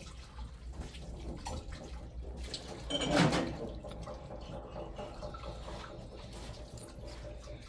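Tap water running and splashing into a small stainless-steel sink as hands wash at it, with a brief louder splash or knock about three seconds in.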